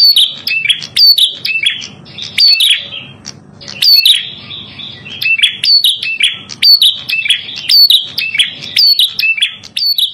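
A prenjak kepala merah (red-headed prenjak) singing a fast, unbroken run of high, sharp chirps, each note sweeping steeply in pitch, with two brief pauses.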